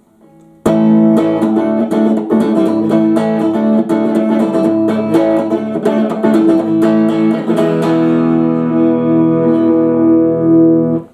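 Aria STG series electric guitar played on its middle pickup. A run of strummed chords starts a little under a second in, then a final chord is left ringing for about three seconds before it is cut off.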